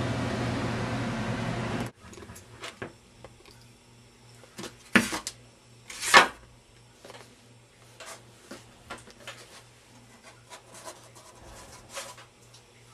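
Hand work on model parts at a workbench: a steady rushing noise cuts off suddenly about two seconds in, then light taps, rubs and clicks of parts being handled, with two louder knocks about five and six seconds in.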